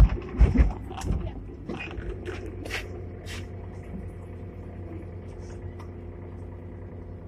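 Inside a Hong Kong double-deck electric tram (sixth-generation car No. 163): a few loud clunks and rattles in the first second, then the tram slows and stops with a steady low hum and scattered light clicks.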